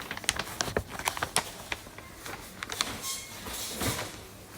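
A run of sharp, irregular clicks and knocks, with a brief hiss about three and a half seconds in.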